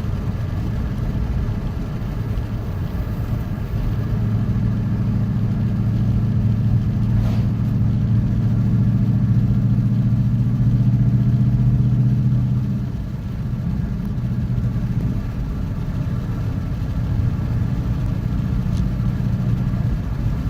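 2012 Ford Mustang Boss 302's 5.0-litre V8 running at steady revs through its open side pipes and SLP Loudmouth axle-back exhaust, a deep, even drone that grows louder about four seconds in and eases off around thirteen seconds.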